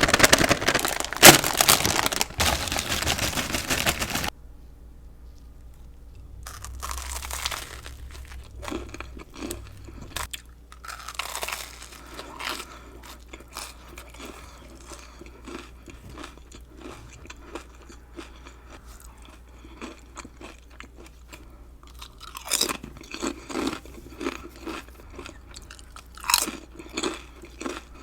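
Close-miked crunching and chewing of jalapeño kettle chips and a tuna sandwich. A loud, dense crunch fills the first four seconds, quieter chewing follows, and another run of louder crunches comes near the end.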